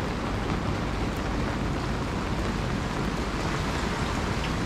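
Steady rain falling: a continuous hiss with a low rumble beneath it and faint scattered drop ticks.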